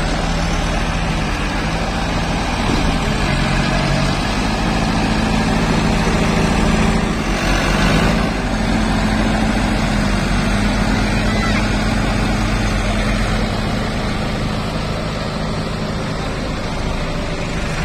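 Tumosan 8195 tractor's diesel engine running hard under load as its tyres spin and dig into loose ploughed soil. The engine pitch shifts a couple of times, about three and eight seconds in.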